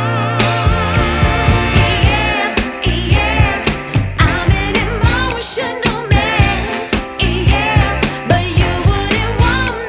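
Background pop music with a steady beat and a singing voice with vibrato.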